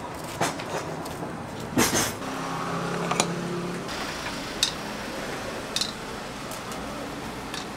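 Metal tongs and utensils clinking against steel trays, a handful of sharp separate clinks about a second apart. A low hum runs underneath through the middle.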